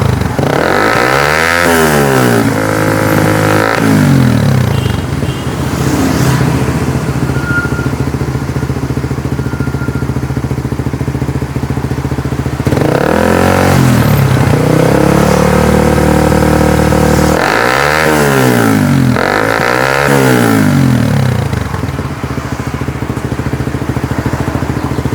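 Suzuki Raider R150's single-cylinder four-stroke engine running through a Yoshimura GP-Magnum stainless full exhaust system, revved in blips from idle. It is revved up and down twice in the first few seconds and held at higher revs for a couple of seconds in the middle. It is then blipped twice more and settles back to idle.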